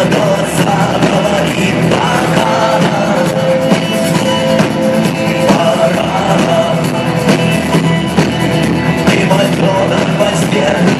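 Rock band playing live, with drums, electric guitars and bass, and a singer's voice over the band.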